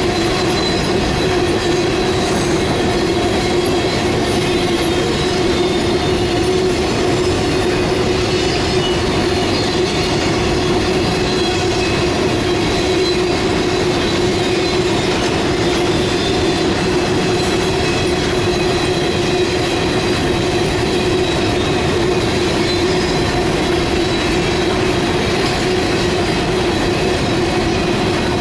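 Freight cars of a manifest train rolling past at steady speed, a continuous loud rumble of steel wheels on rail. Over it runs a steady high ringing squeal from the wheels.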